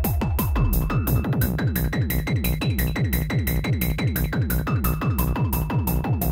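Electronic techno pattern from a Korg Electribe groovebox: high ticks at about four a second over a fast even pulse of low notes that each drop in pitch, with a thin high tone held above.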